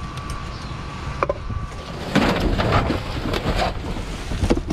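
Cardboard boxes and bagged trash being shifted and rummaged through in a dumpster: scattered knocks and scrapes, then a burst of crinkly rustling about two seconds in.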